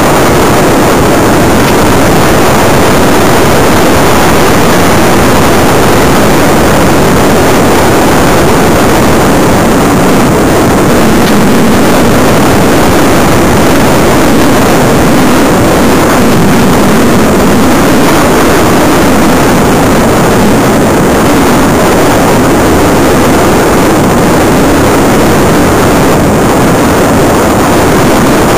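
Steady, loud rushing noise on the onboard audio of a Bixler 2 FPV plane in flight: airflow and the electric pusher propeller, with no clear motor whine standing out.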